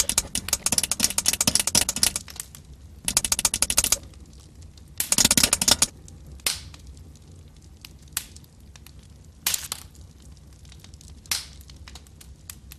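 Three bursts of fast, dense crackling buzz, each a second or two long, in the first six seconds. Then only a few single sharp clicks, spaced a second or two apart.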